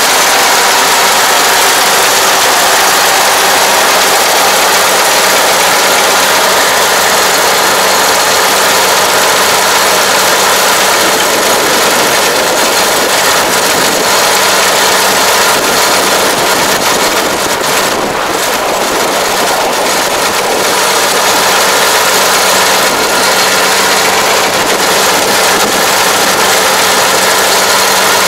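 Rice combine harvester's engine and machinery running steadily at a constant speed, with a slight dip in level about two-thirds of the way through.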